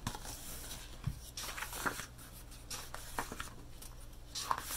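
Faint rustling and soft clicks of a hardcover picture book being handled and opened, over a steady low hum.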